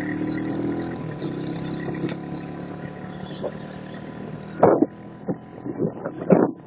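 Motorcycle engine running at a steady cruising pitch, heard from the rider's seat, easing off about three seconds in. From about four and a half seconds, wind buffets the microphone in sharp, irregular gusts.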